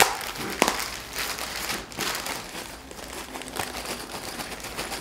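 Crinkling and rustling of packaging being handled as yellow LEDs are taken out, with scattered small clicks and one sharp click about half a second in.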